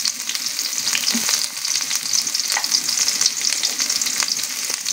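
Chopped onion and green chilli sizzling in hot mustard oil in a steel karahi: a steady crackling hiss with a few sharper pops.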